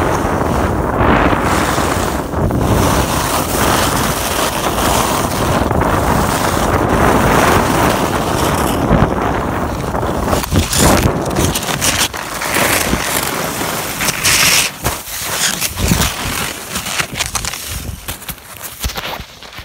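Wind rushing over the microphone of a skier going fast downhill, with skis on packed snow. From about halfway, the rush breaks up into uneven scrapes and thumps, and near the end the skier falls into the snow.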